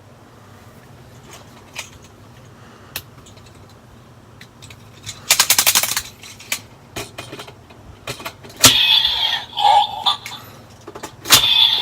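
Bandai DX Kamen Rider Build toy being handled: a quick run of rattling plastic clicks, then single clicks as Full Bottles are fitted, and electronic sound effects with falling pitch from the toy after a loud click about nine seconds in and again near the end.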